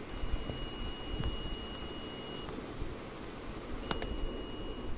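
Digital multimeter's continuity buzzer beeping: a steady high tone held for about two seconds, then cut off. After a click of the probe touching, it sounds again from about four seconds in. The beep shows that the mains-cord wire is continuous, with no break in it.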